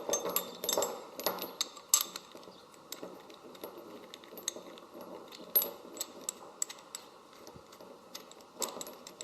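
Anchor chain and a steel shackle clinking and rattling as the shackle's pin end is fitted into the chain. Clinks come thick and fast for the first couple of seconds, then thin out to scattered small clicks, with a short cluster near the end.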